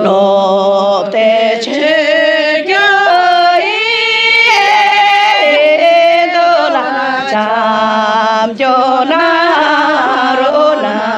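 A solo voice singing a slow, ornamented melody with long held notes that slide and waver in pitch, over a steady low hum.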